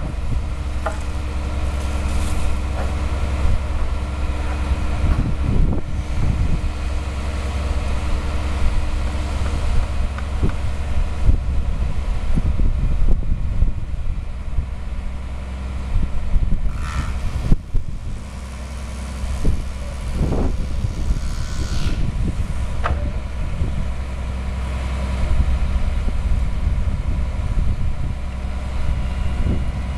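Mobile crane's diesel engine running steadily during a lift, with a few scattered knocks and clanks.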